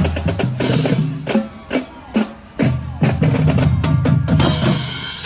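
Parade music led by drums: snare and bass drum beats in a steady rhythm over sustained low bass notes.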